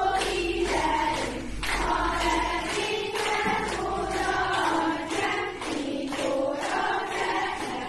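A group of voices singing a song together, choir-style, in held, smoothly gliding notes with brief breaks between phrases.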